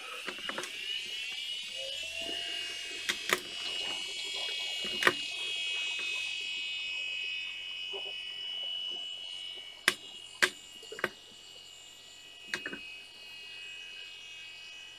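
486 IBM PC330 desktop powering up: its drive and fan spin up as a rising whine that settles into a steady high whine over a low hum. Several sharp clicks come in small groups, about three seconds in, around five seconds, and between ten and thirteen seconds.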